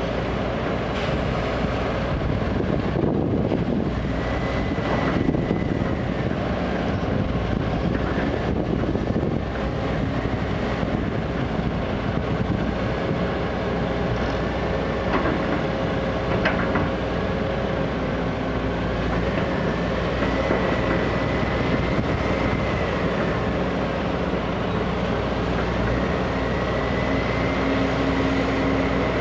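Heavy diesel machinery running together: a Sumitomo SH210 excavator and a ten-wheel dump truck working as the truck's raised bed tips out soil. A steady engine hum carries a faint high whine that drifts slowly up and down, with a few short knocks, and a low steady tone grows stronger near the end.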